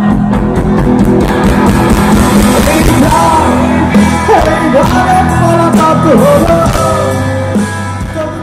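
A Bengali rock band playing live and loud through a concert sound system, with singing over electric guitar and drums.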